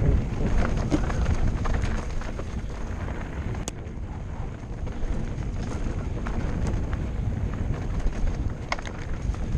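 Mountain bike descending a rough dirt trail, heard from a helmet camera: wind buffeting the microphone over tyres rolling on dirt and stones, with scattered clicks and knocks as the bike rattles over bumps.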